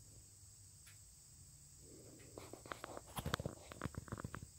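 Footsteps crunching through dry leaf litter: a quick run of sharp crackles and rustles from about two seconds in until shortly before the end, over a steady faint high hiss.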